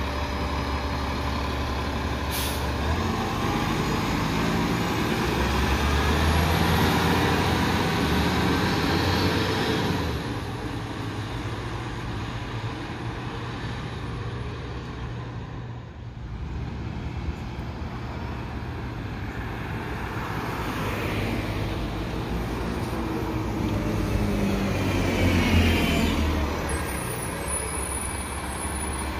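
City transit bus pulling away from a stop, its diesel engine rising as it accelerates, then fading down the street. A second transit bus then approaches, growing louder and slowing to a stop near the end.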